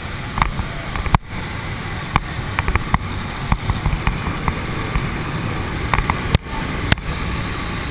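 Steady drone of a small jump plane's engine and airflow heard inside the cabin, with scattered clicks and knocks from gear and the helmet camera being jostled. The sound cuts out very briefly twice.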